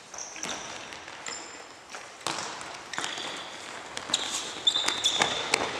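Court shoes squeaking on a wooden gym floor in short high squeals, more of them in the second half, mixed with the knocks of a futsal ball being kicked and bouncing and the patter of running feet, echoing in a large sports hall.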